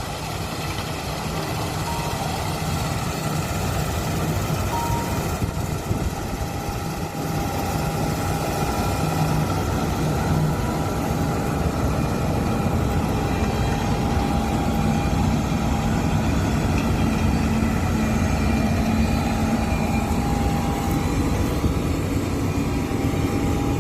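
John Deere T660i combine harvester running steadily, its engine and threshing machinery giving a continuous drone with a thin whine over it.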